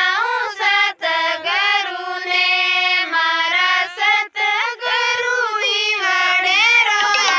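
A woman singing a Rajasthani devotional bhajan unaccompanied, one high voice in long gliding, ornamented phrases, with short breaths about one and four seconds in.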